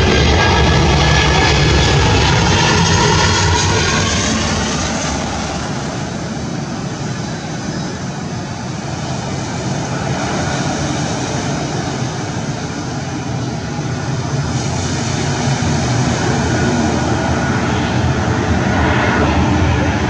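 Boeing 737 airliners' turbofan engines on landing approach: a steady jet rumble and whine that eases off about a third of the way in, then swells again toward the end as another aircraft comes closer.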